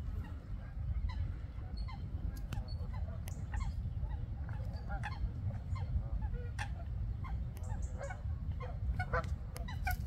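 Waterfowl calling over and over: many short calls throughout, more crowded near the end, over a steady low rumble.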